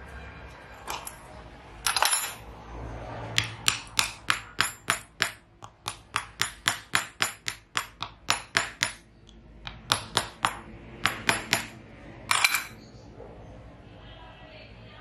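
Small hammer tapping a wooden pattern down into casting sand, light quick taps about three a second in two runs with a short pause between, and a few louder knocks near the start and end.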